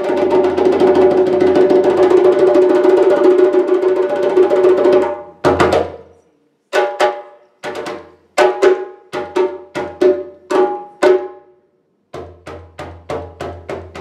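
Djembe hand drum played solo: a fast continuous roll for about five seconds, then separate strokes and short flurries broken by two brief pauses, and quick strokes again near the end.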